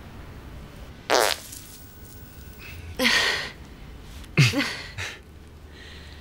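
Comic fart noises: three loud short blasts about a second and a half apart, the first and last with a wobbling pitch, and a smaller puff just after the third.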